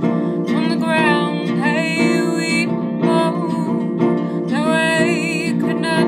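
A woman singing with vibrato over her own acoustic guitar accompaniment, the guitar plucked in a steady pattern beneath the sung phrases.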